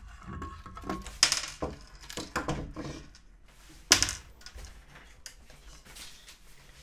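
Battery pack of a Xiaomi electric scooter being pulled out of the scooter's deck by hand: a run of clicks, scrapes and knocks, then one sharp knock about four seconds in.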